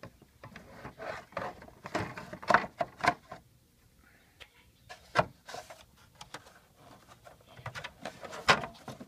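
Plastic air-conditioning duct being handled and pressed into a BMW E90 center console: a run of plastic clicks and knocks, the sharpest about two and a half seconds in, about five seconds in, and near the end.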